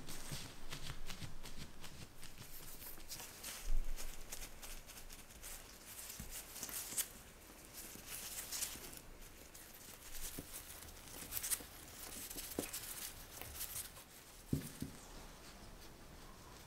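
Gloved hands handling and pressing raw pie dough on a silicone baking mat: irregular soft rustling and crinkling of the disposable gloves with small ticks and taps. A dull thump comes about four seconds in and another about two seconds before the end.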